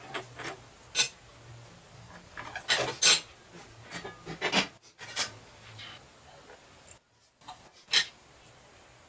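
Sheet steel and a clamping bar being handled on a workbench during bending: a string of short scrapes and knocks, loudest about three seconds in and again near the end.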